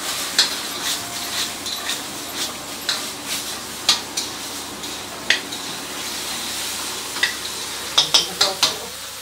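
Chilli chicken sizzling in a wok over a high gas flame, with a metal ladle clanking and scraping against the wok as it is stir-fried; a quick run of four clanks comes near the end.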